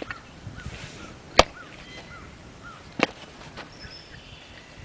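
Two sharp knocks about a second and a half apart, the first the louder, over a bird's repeated short chirps.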